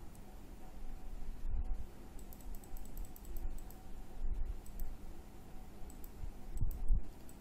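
Computer mouse clicking, a quick run of light clicks about two to three and a half seconds in, with a few low thumps between and a faint steady hum underneath.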